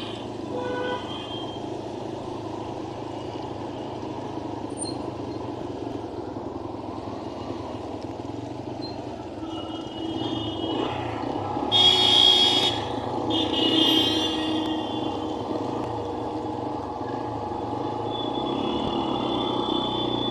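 Steady road-vehicle engine and traffic noise, with two louder bursts, each about a second long, about twelve and fourteen seconds in.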